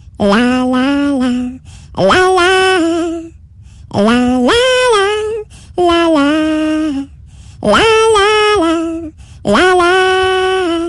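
A woman's voice singing unaccompanied, holding a string of long notes with vibrato and a short break between each.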